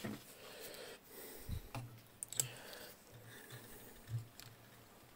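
Faint, scattered sharp clicks of pliers on the metal of a valve radio chassis while a bent dial-lamp holder is straightened.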